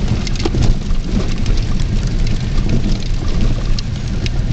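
Rain pattering on a vehicle in many small sharp ticks, over a steady low rumble of the vehicle driving.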